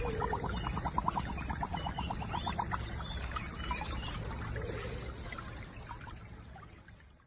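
Water trickling in a shallow muddy pool where a husky lies, with a quick run of ticks in the first few seconds; the sound fades out near the end.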